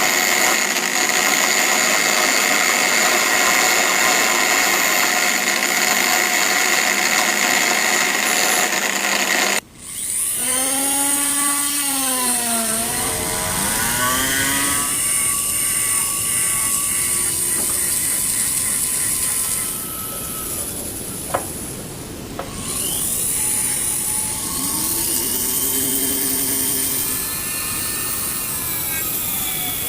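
Power tool running, its pitch rising and falling as it is pressed to the work; the sound changes abruptly about ten seconds in, and a single sharp click comes about twenty-one seconds in.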